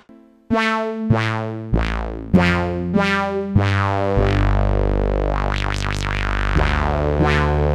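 UDO Audio DMNO hybrid polyphonic synthesizer playing a new patch that comes in about half a second in. Plucked notes with sharp attacks play every half second or so, each starting bright and quickly closing darker, over held low bass notes that step from one pitch to another.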